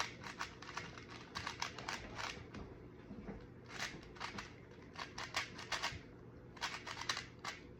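Magnetic Rubik's speed cube being turned quickly by hand: quick runs of light plastic clicks and clacks from the layers, with brief pauses between runs.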